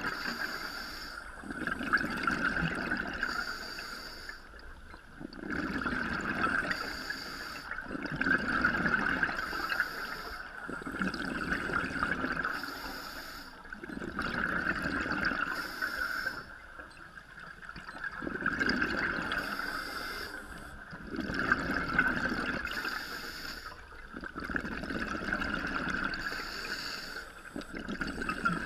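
Scuba breathing heard underwater: regulator breaths and the rush of exhaled bubbles, rising and falling in swells every three seconds or so.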